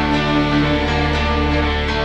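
Background music added over the video: an instrumental track with held chords.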